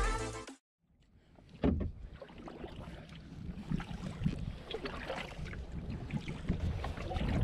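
Water and wind noise around an inflatable kayak on open water, with one sharp knock about a second and a half in.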